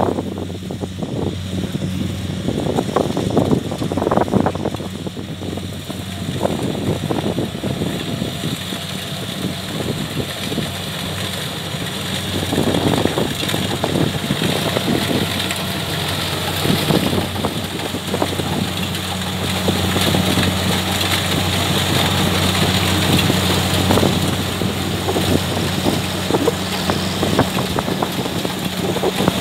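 Kubota DC70 rice combine harvester's diesel engine running steadily under harvesting load, a constant low hum with noisy gusts over it.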